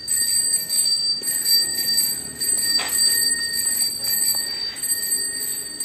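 Ticking of a bicycle's rear freewheel as a new girl's bicycle is wheeled along by hand, a steady run of fine clicks with a sharper click about three seconds in.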